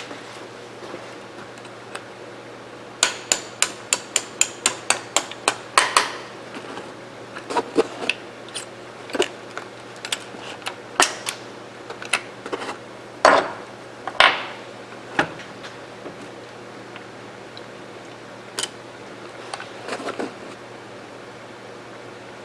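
Hand tools and metal rifle parts during disassembly of a lever-action rifle: a quick run of about a dozen even metal taps, about four a second, like a small hammer tapping a pin out, then scattered knocks and clinks of metal parts until near the end.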